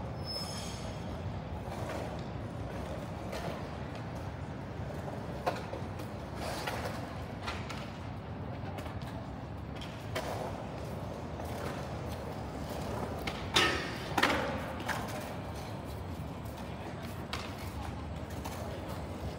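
Outdoor urban night ambience: a steady low rumble, with a few short sharp knocks or clatters. The two loudest come close together about two-thirds of the way through.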